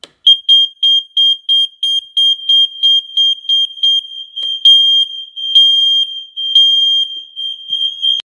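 Home smoke alarm sounding on test: a loud, high-pitched beeping at about three beeps a second that runs together into a near-continuous tone after about four seconds, then cuts off suddenly near the end.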